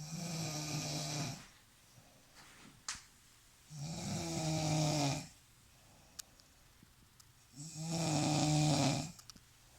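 Heavy snoring: three long, rasping snores with a low buzz, each about a second and a half, coming about every four seconds with quiet breathing gaps between.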